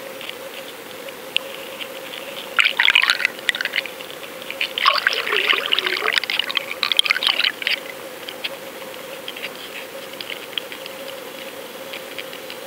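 Bubbling, churning water heard underwater, in two spells of crackling fizz about two and a half and five seconds in, over a steady hum and faint ticks.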